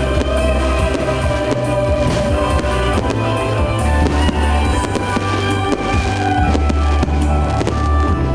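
Music playing loudly with fireworks shells bursting over it, several sharp bangs through the music.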